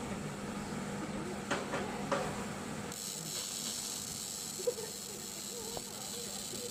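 TIG welding arc hissing steadily over a low machine hum, the hiss growing stronger about three seconds in, with a few light clicks and faint voices in the background.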